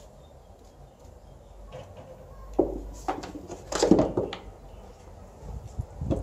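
A few dull knocks and scuffs as a cat climbs into an empty plastic litter box, the loudest about four seconds in.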